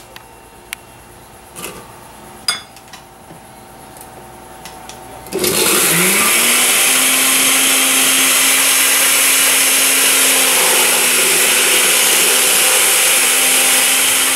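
A few light clicks and knocks, then about five seconds in a countertop glass-jar blender switches on: its motor whine rises quickly to a steady pitch and it runs loud and steady, puréeing hot bird peppers and sweet peppers with oil.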